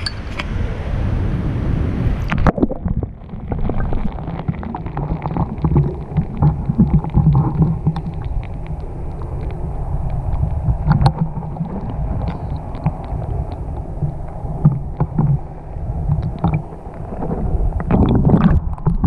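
Fast-flowing Feather River water heard from under the surface through a submerged action camera's housing: a muffled rumble and gurgle with scattered clicks. The sound turns dull and low about two and a half seconds in, as the camera goes under.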